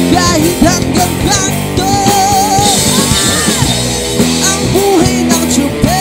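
Live rock band playing: electric guitar, bass guitar and drum kit, with a male lead singer.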